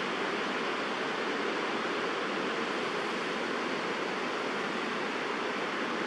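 Steady rushing background noise at an even level, with no distinct bird calls standing out.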